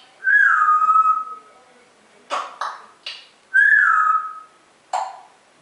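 Pet parrot whistling: two held notes, each about a second long and dropping slightly in pitch, one at the start and one about three and a half seconds in, with short sharp clicks and squawks between and after them.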